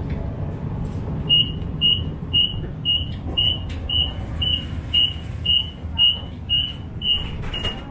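Streetcar door warning beeper sounding a rapid series of short, high beeps, about two a second, over the car's steady low hum: the signal that the doors are about to close before the car pulls away.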